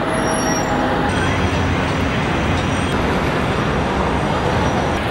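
City street traffic: a steady din of passing cars, taxis and buses.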